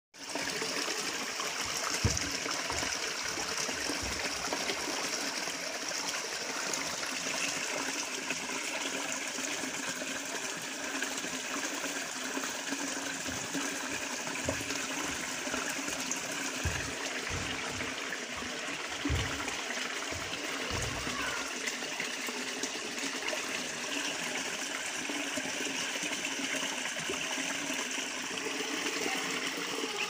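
Water gushing from a plastic pipe into a plastic bucket and overflowing onto wet concrete: a steady splashing rush. A few dull low bumps sound now and then.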